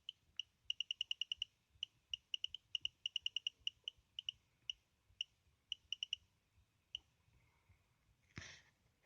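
Short, high electronic pips, irregular and coming in quick runs of about eight a second, then sparser and stopping about two seconds before the end. They are the kind of chirps a detector or beeper gives, and the recorder takes them for a neighbour's microwave oscillator. A brief rustle follows near the end.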